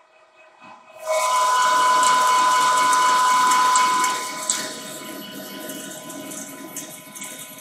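Metal lathe taking a dry cut, without coolant, on a turned metal bushing. A steady whine with a dense cutting hiss starts suddenly about a second in and eases a little after about four seconds, with scattered sharp ticks of chips.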